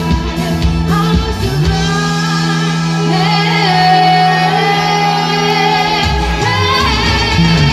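A young woman singing live into a microphone over amplified instrumental backing. The drums drop out for a few seconds while the backing holds a chord and she sustains a long note, then the beat comes back near the end.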